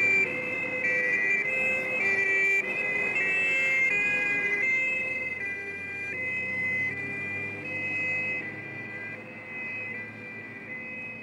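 Two-tone fire engine sirens (German Martinshorn) from more than one vehicle, alternating high and low notes out of step with each other and growing fainter as the vehicles drive away.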